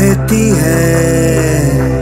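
Background music: a song with a sung melody gliding over a steady, sustained low accompaniment.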